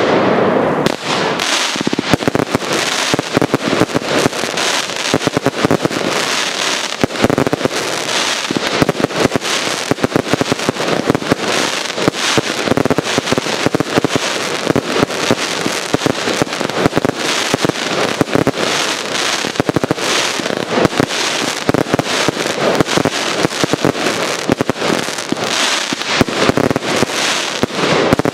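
Professional fireworks display firing continuously: a dense, unbroken barrage of rapid bangs and crackle.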